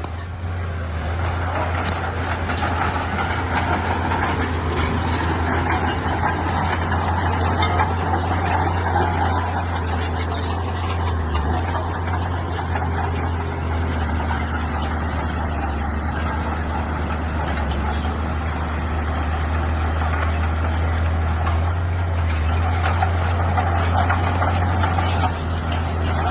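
Bulldozer's heavy diesel engine running steadily, a deep drone with no pauses.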